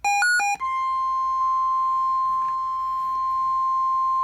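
Emergency Alert System broadcast on NOAA Weather Radio: the end of a shrill digital SAME header burst of rapidly alternating tones, then, about half a second in, the steady single-pitch 1050 Hz warning alarm tone. The tone signals that a warning-level alert is about to be read.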